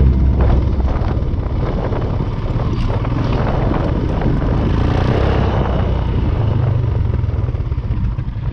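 Motorcycle being ridden, its engine running under a steady rush of noise.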